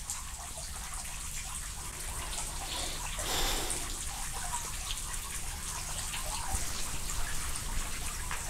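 Steady trickle of running water with faint scattered drips, and a brief louder whoosh about three seconds in.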